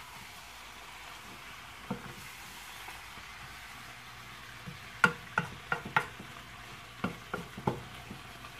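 Chopped chicken and pork sautéing in a nonstick frying pan with a steady sizzle, stirred with a wooden spatula. The spatula knocks and scrapes against the pan in sharp clicks, once about two seconds in and then in a run of them from about five seconds on.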